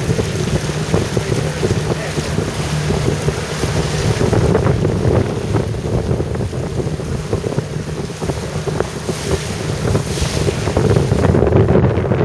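Wind buffeting the microphone over water rushing past a yacht's hull and churning in its wake as the boat moves through choppy sea.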